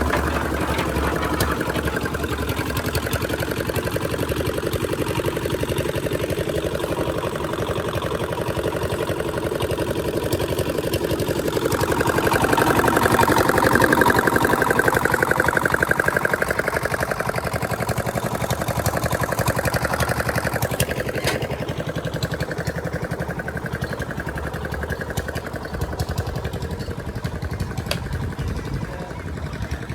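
An engine running steadily with a fast, even pulse, getting louder for a few seconds around the middle and easing toward the end.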